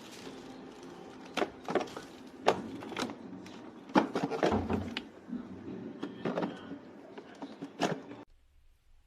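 A series of sharp clicks and knocks at irregular intervals, like hard plastic parts being handled and snapped together, over a faint steady background. All sound cuts off abruptly about eight seconds in.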